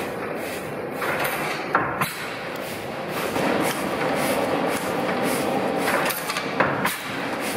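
Old Tangye stationary petroleum engine running steadily, a rhythmic mechanical clatter of about three beats a second, with two sharper clicks.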